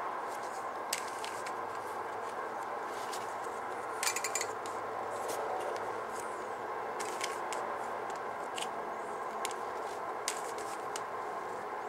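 Rubik's cube layers being turned by hand: scattered short plastic clicks, with a quick run of several clicks about four seconds in, over steady background noise.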